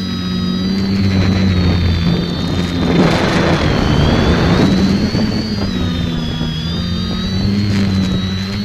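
Electric quadcopter's motors and propellers whining steadily, heard from the craft itself. The high whine wavers up and down as the throttle changes. A rushing noise swells about three seconds in, then fades.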